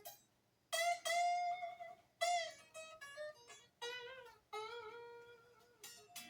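G&L ASAT Junior electric guitar played unplugged: a run of single plucked notes and short phrases, some of them bent in pitch, each ringing out and fading.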